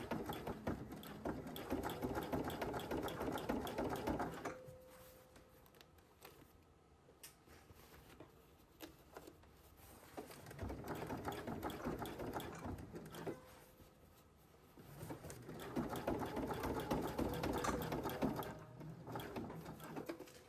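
Sewing machine stitching a zipper into denim jeans, in three runs with pauses between: a first run of about four seconds, a softer one around the middle, and a last one near the end.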